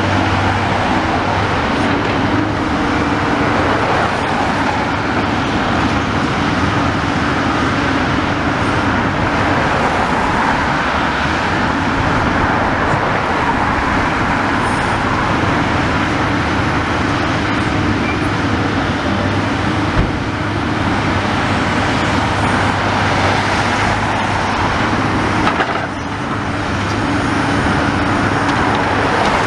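Road traffic passing close by, over the steady hum of a diesel engine from the long-reach demolition excavator working at the building. The noise eases briefly a few seconds before the end.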